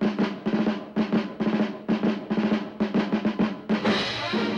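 Cartoon soundtrack of rapid drumming in quick rolls, several strokes a second. About four seconds in it ends in a loud crash, and a band with brass begins to play.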